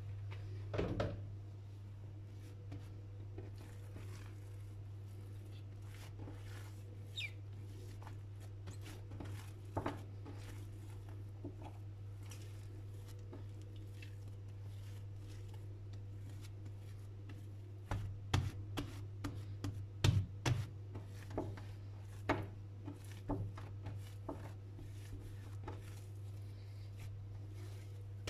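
Hands kneading and shaping bread dough on a countertop: soft pats and thumps of the dough against the counter, sparse at first, then a quicker, louder run about two-thirds of the way through, over a steady low hum.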